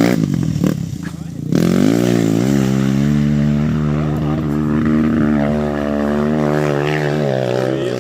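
Honda XR 250 Tornado trail bike's single-cylinder four-stroke engine running hard under load while climbing a steep dirt slope. It dips briefly about a second in, then revs up and holds high, wavering revs.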